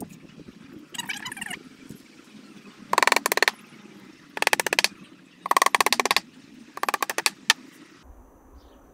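Hammer tapping small flat-headed pin nails into the thin back panel of a wooden box, in several quick bursts of rapid taps.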